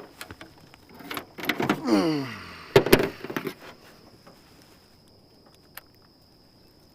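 Handling noises while a bass is unhooked from a frog lure: light clicks, then a creak that slides down in pitch about two seconds in and a sharp knock about a second later. A faint steady high whine runs underneath.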